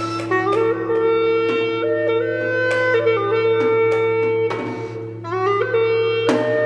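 Chinese-style instrumental background music: a melody of held wind-instrument notes stepping up and down over a steady low drone, with plucked or struck notes punctuating it.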